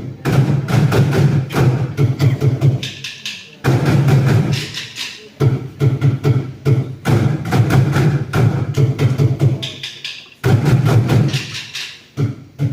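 Bucket drumming by a group: fast rhythmic stick strokes on upturned buckets, deep booming hits under sharper rim and side clicks. The rhythm comes in phrases, with loud, heavily accented restarts about four seconds in and again near ten and a half seconds.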